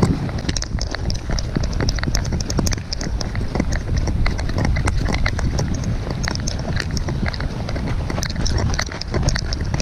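Footsteps crunching through snow, a run of short sharp crunches, over a steady rumble of wind on the microphone.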